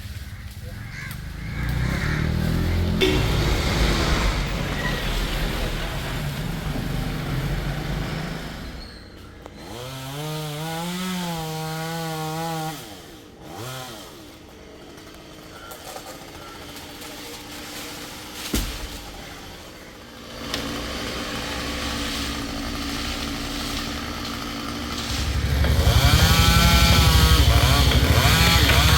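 Two-stroke chainsaw running in spells, revving up and dropping back with quieter idling between, loudest near the end.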